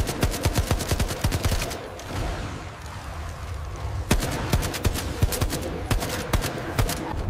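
Rapid automatic gunfire in two long bursts, one in the first two seconds and another from about four seconds in, with a lull between. It is AI-generated film sound from Google's Veo 3.1.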